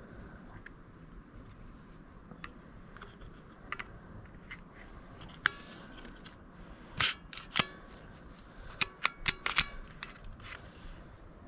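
Small metal parts of a Ruger LCP Max pistol clicking and scraping as they are handled and fitted together by hand. The clicks are scattered at first, then come in a cluster with a short metallic ring a little past halfway, and in a quick run of several sharp clicks near the end.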